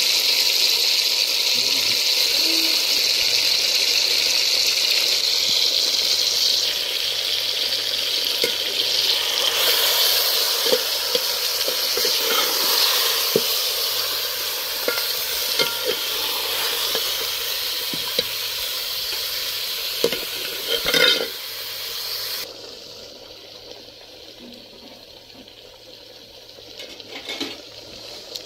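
Chunks of meat sizzling in hot oil in a metal cooking pot, with knocks and clinks as they are stirred against the pot. The sizzle drops off sharply about three-quarters of the way through, leaving a fainter hiss.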